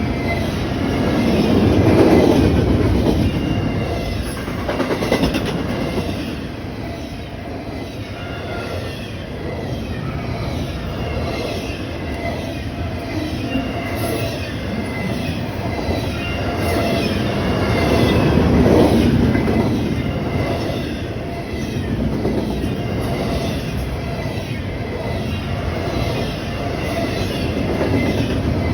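Train cars rolling by: a steady rumble and clatter of wheels on the rails with a faint wheel squeal. The sound swells about two seconds in and again about two-thirds of the way through.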